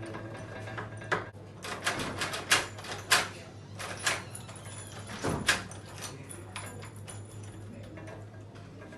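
Door knob lockset being worked: a string of sharp metallic clicks and knocks from the knob, latch and lock mechanism, clustered in the first two-thirds and then stopping.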